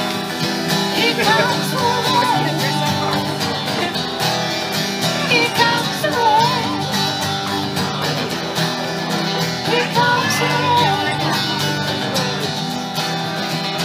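Live acoustic trio playing a country-style song: two steel-string acoustic guitars over a plucked double bass.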